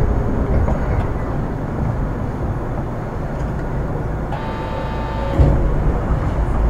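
Onboard running sound of an Astram Line 6000 series rubber-tyred automated guideway car with thyristor armature chopper control: a steady rumble of the car in motion. About four seconds in, a high whine of several tones sounds for about a second, followed by a thump.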